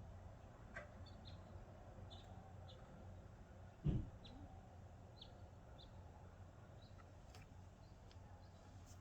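Faint birds chirping outdoors: short, high, downward-slipping notes, a couple each second, over a low steady hum. A single dull thump comes about four seconds in.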